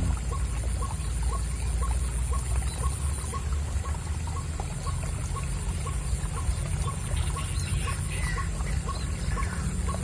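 White-breasted waterhen (ruak-ruak) calls: short notes repeated at an even pace, nearly three a second, over a steady low rumble.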